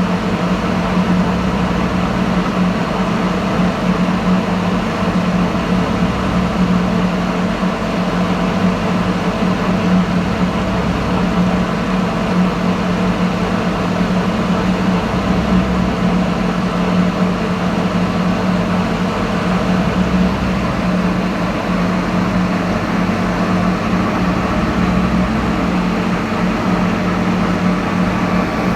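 Lathe running with a steady mechanical hum and a strong low drone.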